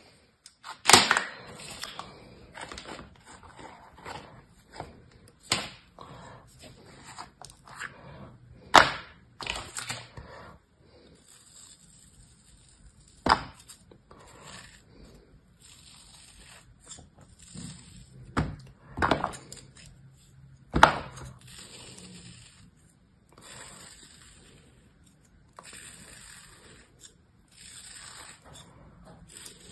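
Kinetic sand being pressed out of a plastic mould and sliced into layers with a small knife: soft crunching and scraping of the sand, broken by several sharp knocks.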